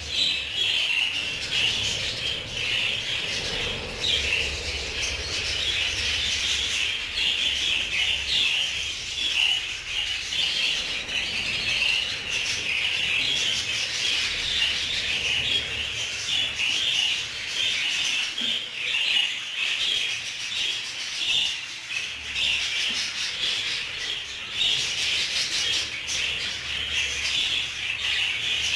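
A flock of budgerigars chattering and warbling continuously, a dense raspy twittering.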